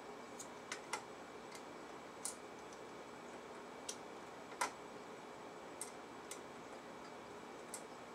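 Scattered light clicks and ticks, irregular and about ten in all, of small screws and metal parts being handled and fitted by hand into a Panavise vise head, with one sharper click a little over four and a half seconds in. A faint steady hiss with a thin hum lies underneath.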